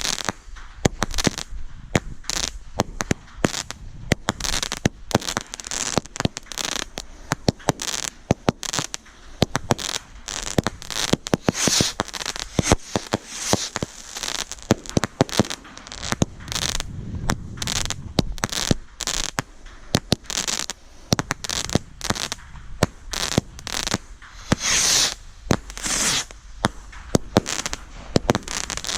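Fireworks going off in rapid succession: many sharp bangs and crackling reports, with louder bursts of crackling hiss about 12 seconds and 25 seconds in.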